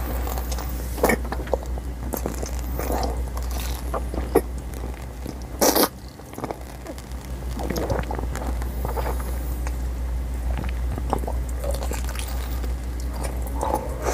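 A big mouthful of Xylitol candy-coated chewing-gum pellets being bitten and chewed right at a lapel microphone: irregular crunches and wet chewing clicks, with one louder burst about six seconds in. A steady low hum runs underneath.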